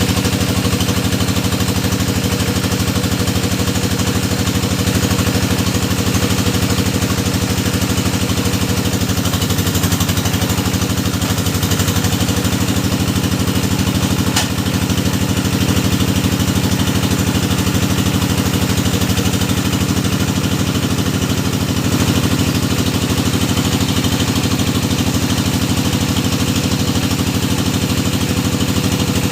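Engine of a hydraulic deep-well drilling machine running steadily, its pitch wavering briefly about ten seconds in. A single sharp click about fourteen seconds in.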